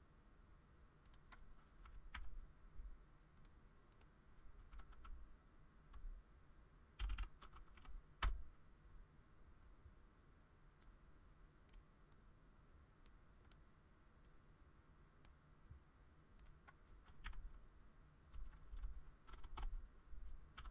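Faint typing on a computer keyboard: scattered key clicks, with short spurts of typing about a third of the way in and again near the end.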